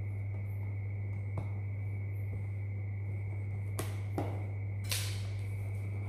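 Knife blade slitting the seal on a cardboard box: a few faint scrapes and ticks, the clearest about four to five seconds in, over a steady low hum.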